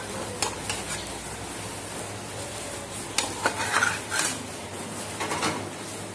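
Kitchen utensils clinking and knocking: a metal spatula and steel pots and pans handled on a gas stove top, with light knocks scattered irregularly through, some in quick little clusters, over a faint steady hum.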